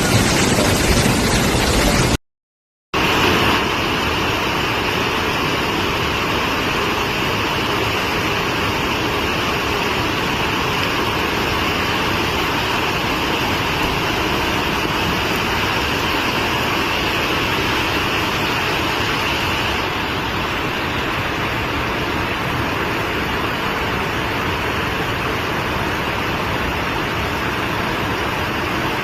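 Rushing floodwater: a loud, steady roar of noise, broken by a brief cut to silence about two seconds in.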